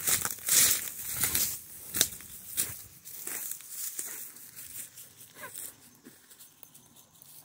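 Footsteps crunching through dry leaf litter and swishing through tall grass and brush, in irregular strokes that are loudest in the first three seconds and grow fainter afterwards.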